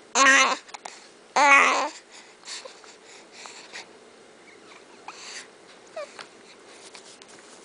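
A baby babbling and squealing: two loud, wavering vocal calls in the first two seconds, then softer, short coos and noises.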